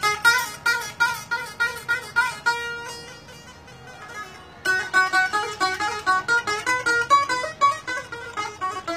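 Long-necked lute played solo: a quick melody of plucked notes. About two and a half seconds in the playing thins to a single ringing note, and the quick plucking picks up again a little past four and a half seconds.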